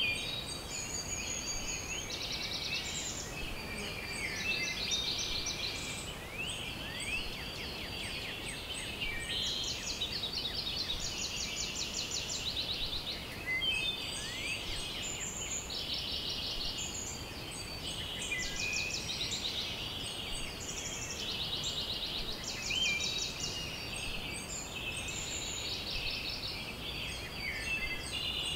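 A dense outdoor chorus of many overlapping high-pitched chirps and rapid trills, one caller after another, with no gaps.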